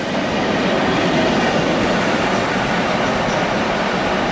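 Class 90 electric locomotive running light engine, with no train behind it: a steady loud rush of wheels on rail and rolling noise as it goes by.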